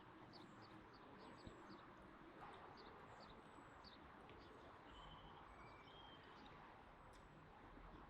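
Faint outdoor ambience with small birds chirping: many short high chirps and a few brief whistled notes over a steady background hiss.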